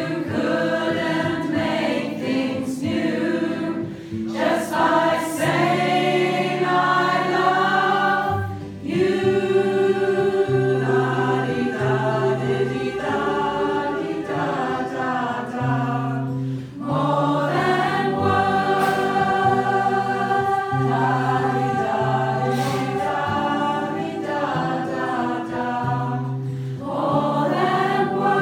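Mixed community choir, mostly women's voices, singing in parts over sustained low notes, with short breaks between phrases.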